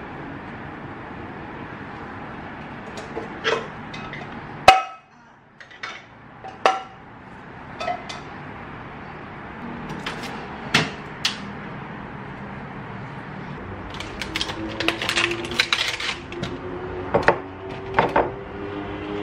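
Kitchenware being handled and set down: scattered clinks and knocks of dishes and plastic containers, the loudest a sharp knock about five seconds in, with a busier patch of clatter near the three-quarter mark.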